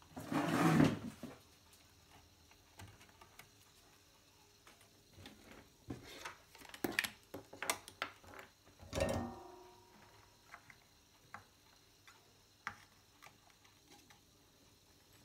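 Scattered light clicks and knocks from multimeter test probes and tools being handled on a wooden workbench. There is a louder rustle in the first second and another around nine seconds in.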